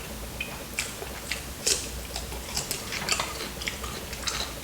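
A person chewing food, with irregular crisp clicks and wet smacks several times a second.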